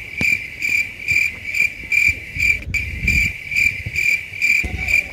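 An insect chirping steadily: a high, pulsing note repeated evenly about four times a second, over a low rumble of wind and ground noise.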